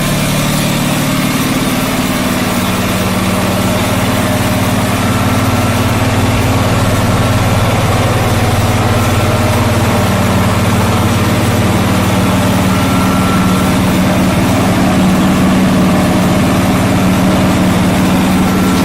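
John Deere 445 garden tractor's engine idling steadily. Its note shifts slightly a couple of seconds in and again about halfway through.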